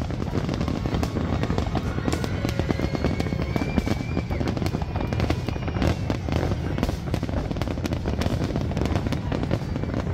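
Fireworks display: aerial shells bursting in quick succession with dense, continuous crackling and bangs.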